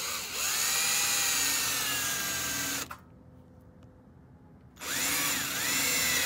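Cordless drill with a small twist bit drilling a pilot hole through a metal fender flare: the motor whines for about three seconds, stops for about two, then starts again, its pitch dipping briefly as the bit bites into the metal.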